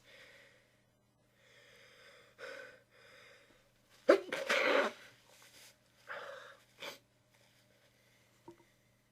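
A person sneezing into a tissue: a few soft, building breaths, then one loud sneeze about four seconds in, followed by several shorter breathy sounds.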